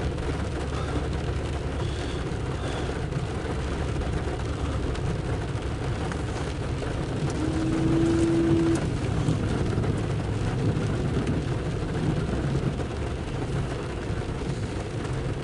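Steady low rumble inside a car's cabin with rain falling on the windshield. About seven seconds in, a windshield wiper makes one sweep with a short steady motor hum.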